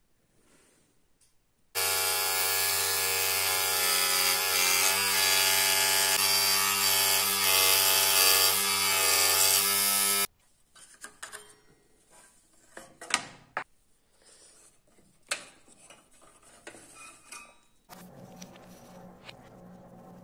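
Scroll saw switched on and running for about eight seconds as its blade cuts an opening in a thin wooden panel, then stopping abruptly. Afterwards there are a few light knocks and scrapes as small wooden parts are handled.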